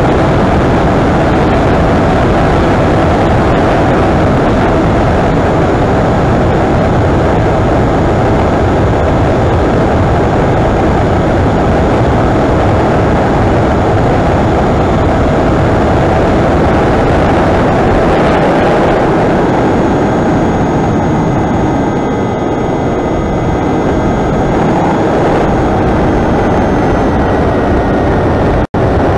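Electric brushless motor and propeller of an FPV flying wing in flight, heard through its onboard camera's microphone as loud rushing wind with a steady motor whine over it. The rush eases slightly about two-thirds of the way through, and the recording cuts out for a split second near the end.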